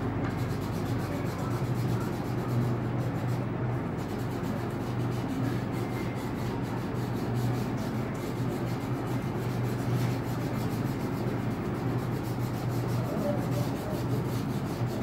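Light green wax crayon rubbed on paper in rapid back-and-forth strokes, giving a continuous scratchy rubbing, over a steady low hum.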